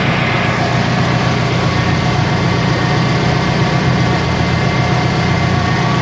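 Toyota Camry engine idling steadily, with a mass airflow sensor that the mechanic judges faulty after fault codes for an intake air temperature sensor circuit high.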